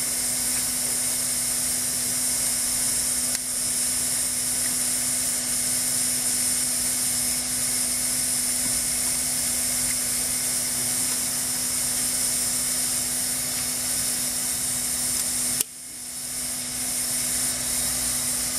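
Steady machine hiss with a constant low hum underneath, as from a blower or motor running. About three-quarters of the way through there is a single click, after which the hiss drops away sharply and builds back up over about a second.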